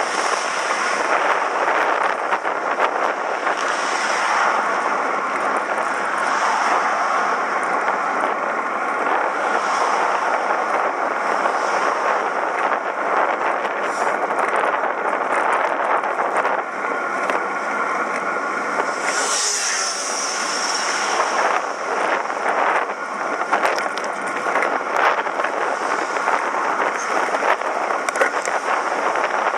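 Wind rushing and crackling over the microphone with road noise while riding a bicycle along a road, a brief louder hiss about two-thirds of the way through.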